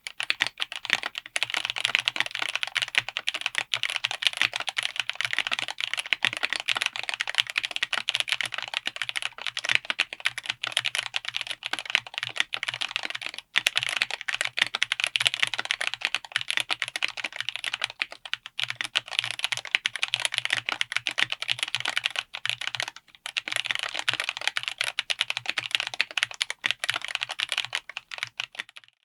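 Fast, continuous typing on a 60% mechanical keyboard with Ajazz Blue Sky tactile switches on an FR4 plate in an aluminum case: a dense run of key clacks, broken by a few brief pauses.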